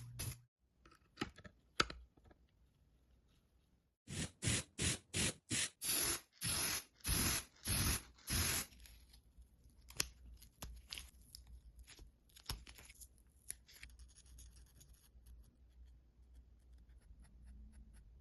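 Hand work on a small diecast model car: a few scratches, then about ten quick rhythmic scraping strokes in a row, followed by scattered light clicks and scratches.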